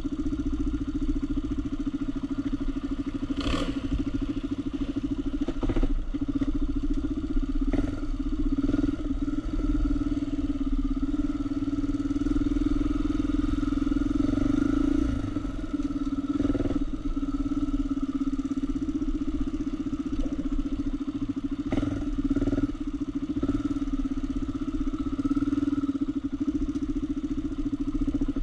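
An ATV's engine runs at a steady, moderate pitch while the quad is ridden along a dirt trail. A few short knocks sound in between.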